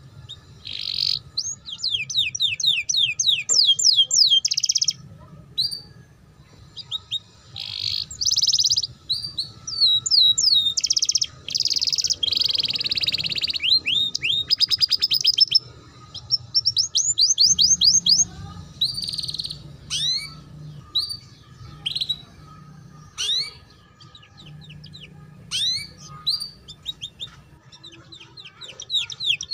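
Young domestic canary singing in fast twittering 'ngeriwik' phrases: runs of quick, high, downward-sweeping chirps several a second, broken by buzzy rolls and short pauses.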